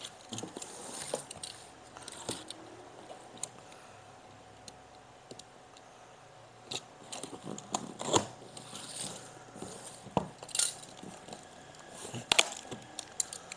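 A cardboard box being opened by hand: scattered rustles and crinkles of cardboard and packing tape, with a few sharper clicks and knocks as the flaps are pulled open, the loudest near the end.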